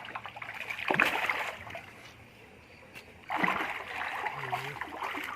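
Water splashing and sloshing in two spells, the second starting about three seconds in, with a quieter gap between.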